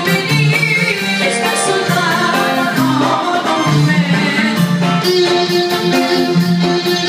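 Live band music with a woman singing through a microphone, over a steady drum beat and accompaniment.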